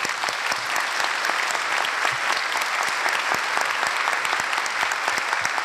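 A large audience in an assembly hall applauding, a dense, steady clapping that holds its level throughout.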